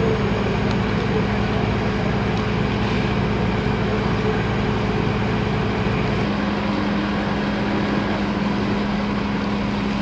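Fire truck engine running steadily at the fire scene, a constant low droning hum with a rumble beneath it. About six seconds in, part of the low rumble drops away while the hum carries on.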